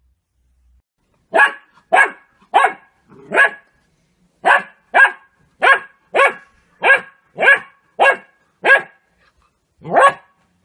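A puppy barking: a run of about fourteen short, sharp barks, roughly two a second, starting about a second and a half in, with a brief pause about a third of the way through.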